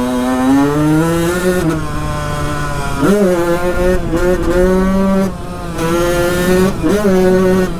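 A 1993 Honda CR125's two-stroke single-cylinder engine revving hard under full acceleration. Its pitch climbs, drops back and climbs again a few times as the throttle is worked.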